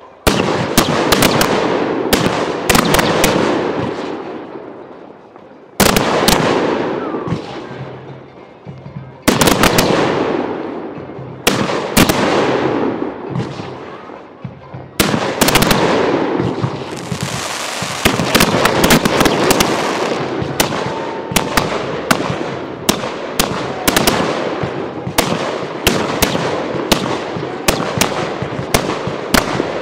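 Fireworks going off: several big bursts a few seconds apart, each followed by a fading crackle, then from about halfway a dense, unbroken crackling of many sharp reports.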